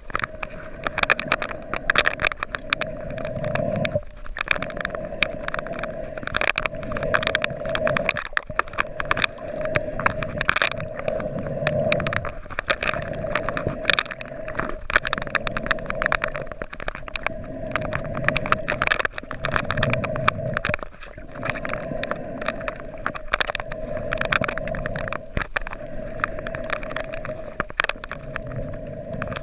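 Underwater sound picked up by a camera held below the surface over a coral reef: a dense crackle of sharp clicks, a steady hum, and a low rumble that swells and fades every few seconds.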